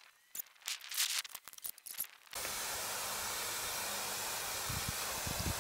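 Garden hose spray nozzle jetting water onto a boat hull, a steady hiss that starts abruptly about two seconds in. Before it, a few short scratchy rustles.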